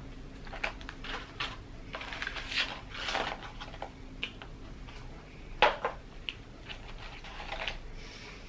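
Paper fast-food packaging being handled: irregular rustling and light taps as fries are tipped from a paper cup into a paper fries carton and the carton is set down on a wooden table, with one sharper tap a little past halfway.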